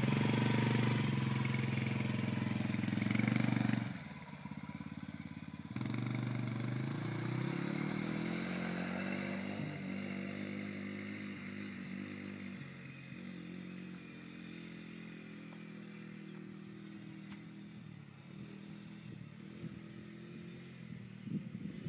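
Small Honda youth ATV engine running under throttle, easing off about four seconds in, then picking up again with rising pitch as it accelerates and slowly fading as it drives away.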